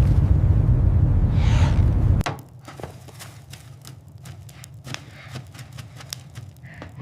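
A loud, low rumble like storm wind that cuts off suddenly about two seconds in. It is followed by a quieter, irregular run of crisp crunching clicks.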